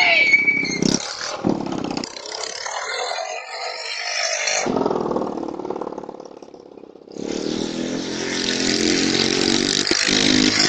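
Motorcycle engine running and revving as the bike circles past, its sound swelling and fading and loudest in the last few seconds. A brief high squeal comes right at the start.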